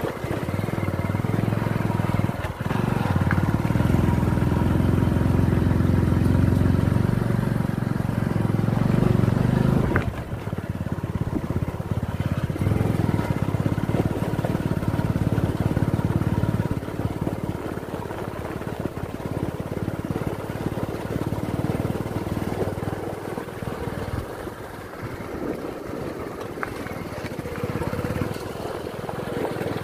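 Motor vehicle engine running while driving, loudest for the first ten seconds, then easing off and dropping lower after about seventeen seconds.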